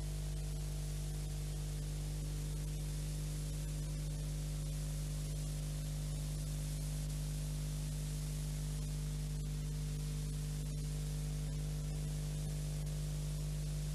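Steady electrical hum and hiss from the recording itself, with no other sound: the noise floor of an old analogue video recording.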